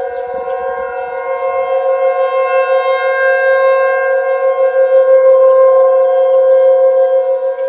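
Outdoor warning siren sounding a steady, held tone during a statewide siren test. Its pitch holds level while its loudness slowly swells and then falls off near the end.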